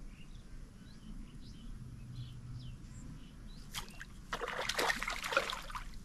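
A hooked fish thrashing and splashing at the pond surface as it is pulled out of the water on a rod and line. The splashing comes as one burst of about a second and a half near the end.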